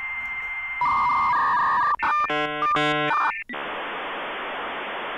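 Dial-up modem connection sound: a steady tone over hiss, then beeping tones, two harsh buzzy screeches in the middle, and a long even hiss of static.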